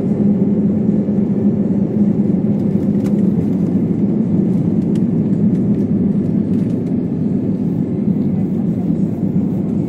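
Airbus A320-family jetliner at takeoff thrust, heard from inside the cabin: a steady, loud, deep engine roar with runway rumble as the plane accelerates along the runway and lifts off near the end.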